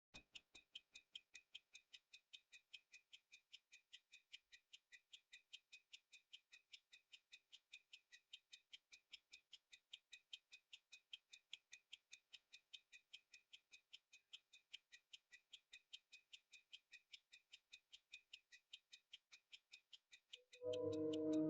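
Hamilton Grade 974 pocket watch ticking steadily and faintly, about five ticks a second. Soft music comes in near the end.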